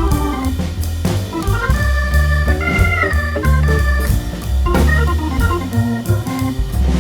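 Background music led by an organ-like keyboard over a heavy bass line and a steady beat.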